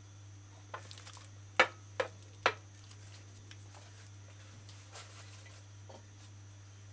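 Kitchen containers and a measuring cup being set down on a countertop: a few light taps, then three sharp knocks close together about a second and a half in, and another light knock near the end, over a steady low hum.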